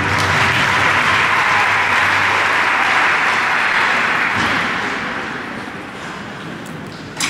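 Audience applauding as the program music ends, the clapping thinning out over the last few seconds.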